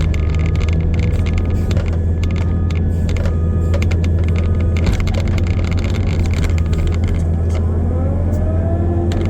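Diesel engine of bucket-equipped earthmoving machinery running steadily, with frequent knocks and rattles and a rising whine near the end.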